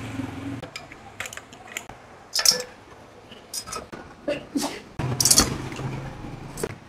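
Opened reciprocating refrigerator compressor on a test run: its motor gives a steady low hum that dies away under a second in and comes on again sharply about five seconds in, stopping near the end. Scattered metallic clinks and knocks from the exposed pump and its fittings being handled.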